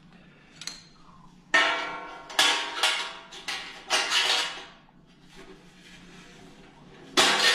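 Stainless-steel heat deflector and its metal leg clip clanking as the clip is worked into place: a handful of sharp metallic knocks that ring on briefly, about five in the first half, then another loud one near the end.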